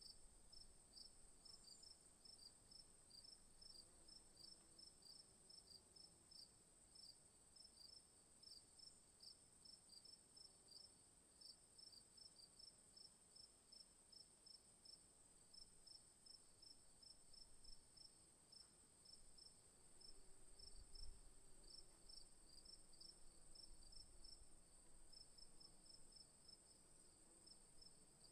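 Faint chorus of night insects: a steady high-pitched drone with crickets chirping about two to three times a second. A faint low rumble swells briefly about two-thirds of the way through.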